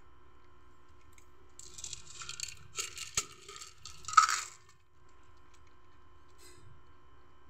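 Dry cat kibble poured from a metal container onto a concrete step: a run of rattling and clinking as the pellets slide out and scatter. It lasts about three seconds from a second and a half in, with a sharp click partway through and the loudest rattle near the end.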